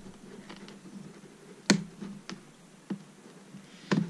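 Knife and hands working at a stiff plastic clamshell package, giving scattered plastic clicks and scrapes, the loudest a sharp click about a second and a half in.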